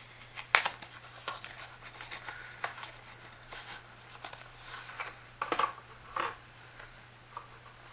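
Hands opening a small cardboard box and taking out a drawstring pouch: scattered light scrapes, rustles and clicks, the sharpest about half a second in and a few more about five and a half to six seconds in, over a faint steady low hum.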